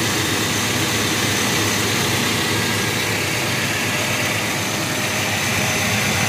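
Chevrolet 305 small-block V8 idling steadily, heard up close with the hood open.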